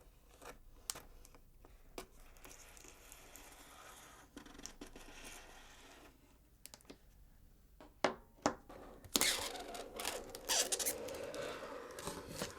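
A cardboard box being cut and opened: scattered clicks and scratches of a cutting tool on tape and laminated cardboard, a few sharp snaps about eight seconds in, then louder tearing and scraping for about three seconds.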